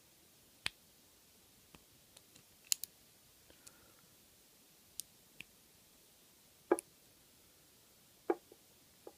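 Small, sharp metallic clicks and ticks of a lock pick and tension wrench working the pin stacks of an American Padlock 5570 series six-pin padlock, coming at irregular intervals, with two louder clicks in the second half.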